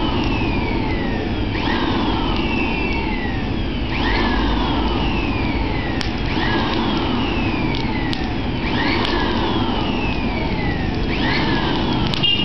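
Blower driving air down a hose into a bucket forge, with a steady rush of air through the fire. Its whine swoops up sharply and dies away again about every two seconds.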